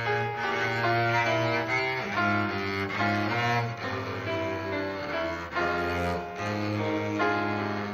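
Live classical music: a cello playing a moving melody over a lower bass part.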